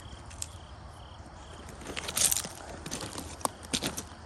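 Footsteps crunching on creek gravel, irregular crunches starting about two seconds in, with faint insect chirping before them.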